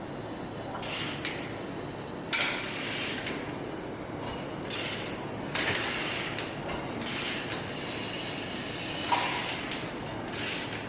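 Freshly rebuilt engine being turned over by hand with a wrench on the crankshaft: a sharp click about two seconds in, then irregular ratchet clicks and short mechanical rubbing and rasping sounds as the rotating assembly turns against compression.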